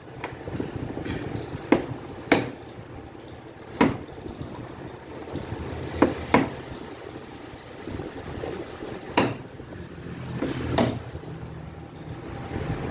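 Sharp metal taps, about seven at irregular intervals with short ringing after each, as a replacement bushing is knocked into place in a Mallory electric fan motor's bearing housing.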